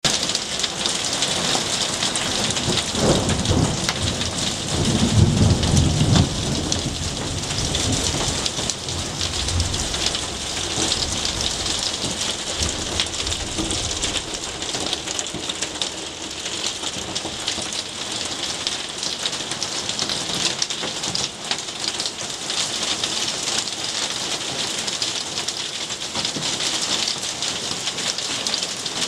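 Heavy rain with small hail falling steadily on leaves, paving and a tiled roof, a continuous hiss. A low rumble of thunder swells a few seconds in, is loudest around five or six seconds, and dies away about halfway through.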